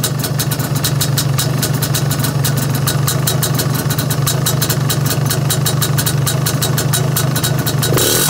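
MZ ETZ250's single-cylinder two-stroke engine idling cold on a little choke, a steady run with a fast, even ticking over it.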